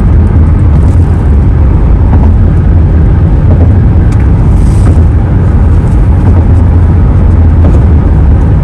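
Steady low road rumble of a car driving on a highway, heard from inside the cabin.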